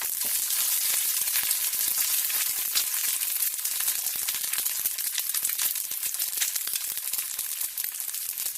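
An egg frying in hot oil: steady sizzling, thick with many small crackling pops.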